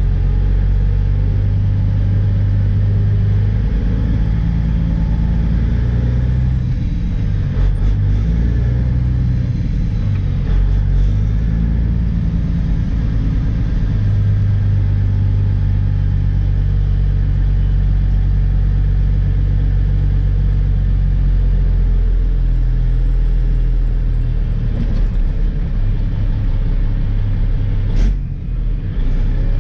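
Heavy diesel dump truck engine heard from inside the cab while driving: a loud, steady low drone that changes pitch a few times as gears are shifted, with a brief dip near the end.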